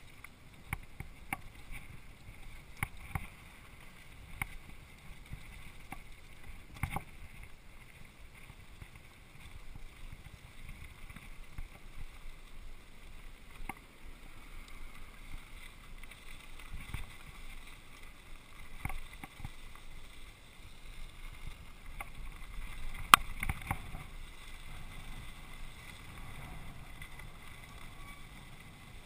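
Mountain bike rolling fast downhill over a dirt trail and gravel road: a steady rush of tyre and wind noise with a rattle of sharp knocks as the bike hits bumps. The loudest knock comes about two-thirds of the way through.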